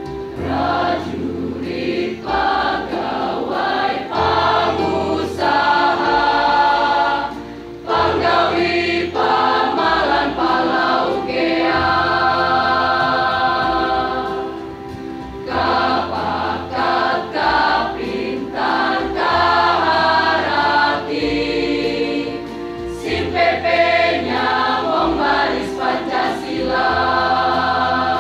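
High-school choir singing a slow piece in held chords, over low bass notes that change every couple of seconds.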